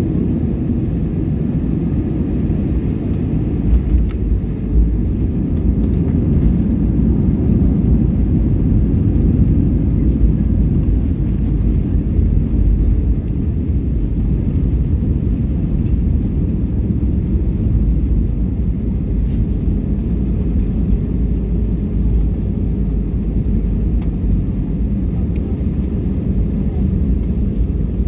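Airbus A320 cabin noise heard from inside the cabin: a loud, steady, low rumble of engines and airflow, with a faint high whine that fades out in the first few seconds.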